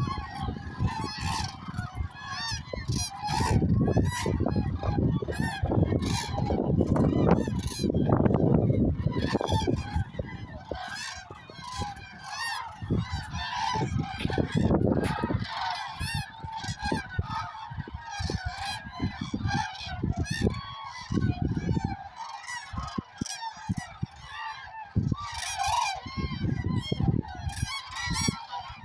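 A large flock of common cranes calling together, many loud honking calls overlapping without a break. Low rumbling bursts come and go underneath, most in the first half.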